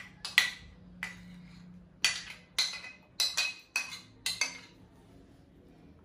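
Metal spoon clinking and scraping against a small ceramic dish while scooping out pizza sauce: about ten sharp clinks over the first four and a half seconds, each ringing briefly.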